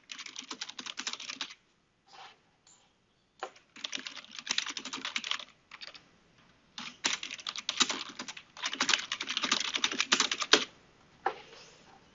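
Rapid typing on a computer keyboard, in several spells of a second or a few seconds separated by short pauses.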